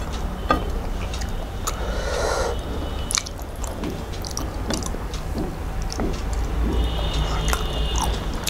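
Close-up chewing and wet mouth smacks from eating rice mixed with spinach saag by hand, with fingers squishing the food on the plate: irregular small clicks and squelches.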